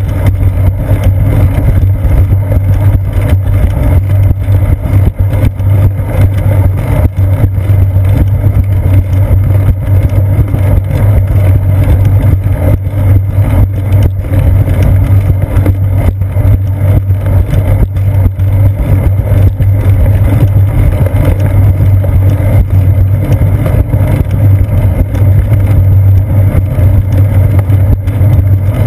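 Steady, loud low rumble of wind and riding vibration picked up by a seat-post-mounted GoPro Hero 2 on a moving bicycle.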